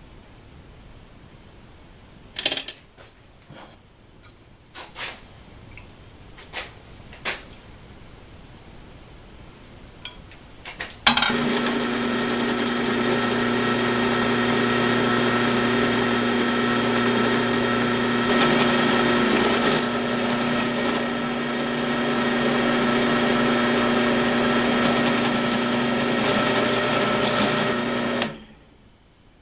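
A few light knocks and clicks, then about eleven seconds in a small benchtop drill press motor starts suddenly and runs with a steady hum while a 4 mm bit drills a pilot hole in a cast housing; it winds down quickly near the end.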